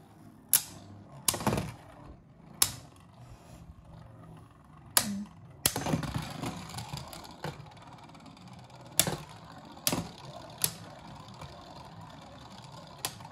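Two Beyblade Burst spinning tops, Union Achilles and Cosmic Apocalypse, battling in a plastic stadium: sharp clacks as they collide at irregular intervals, the loudest near the start and about a third of the way in. Between hits there is a light rattling whir of the tips grinding on the stadium floor.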